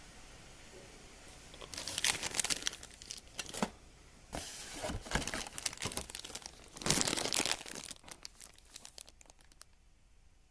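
Clear plastic bags of model-kit parts crinkling as they are handled, in irregular bursts starting about two seconds in and dying away near the end.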